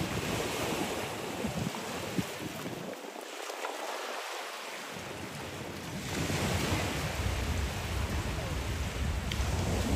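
Surf washing onto a sandy beach, with wind buffeting the microphone; the low wind rumble drops away briefly about three seconds in and is heavier in the second half.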